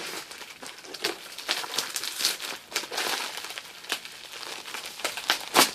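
Packaging crinkling and rustling as a mailed parcel is unwrapped by hand, in a run of irregular crackles, with a louder sharp crackle near the end.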